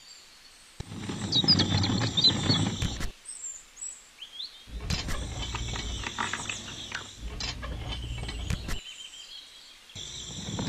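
A rocker switch clicks about a second in, and the small electric motor of a miniature concrete mixer runs, turning the drum, in stretches broken by silent gaps.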